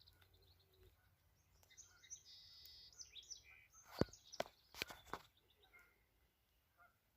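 Faint chirping and singing of small birds, with a quick cluster of four or five sharp clicks a little past the middle.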